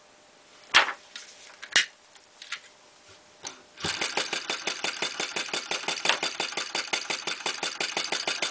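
Model fire eater (flame-licker) engine being started by hand: a couple of single knocks as the flywheel is turned, then about four seconds in the engine catches and runs on by itself with a rapid, even clicking beat, one click per cycle as the flame is sucked in and the valve closes.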